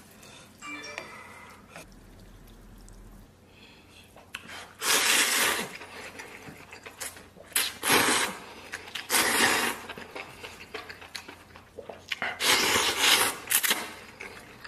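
Close-up slurping of instant noodles and broth from a bowl: several loud slurps about a second long, with small eating clicks between them.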